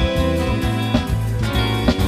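Live band music between sung lines: acoustic guitar playing with a bass line and held notes.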